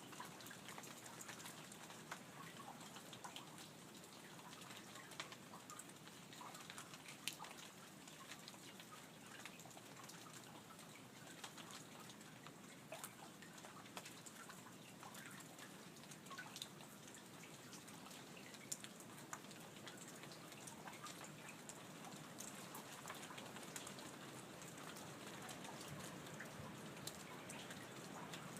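Light rain falling steadily, with many scattered individual drips ticking. A few sharper drips stand out now and then.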